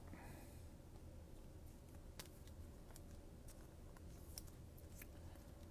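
Near silence: faint, scattered light ticks and rustles of trading cards being handled, over a low steady room hum.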